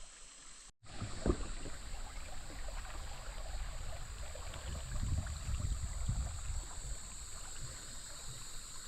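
Water sloshing and splashing around a kayak on a creek, an uneven low rumble with one sharper splash shortly after a brief dropout about a second in.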